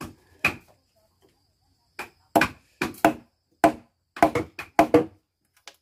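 Wooden mallet striking a steel chisel, cutting a mortise into a dry, hard xoan (chinaberry) timber beam by hand. Sharp separate knocks: two at the start, a pause of over a second, then about ten quicker, uneven strikes.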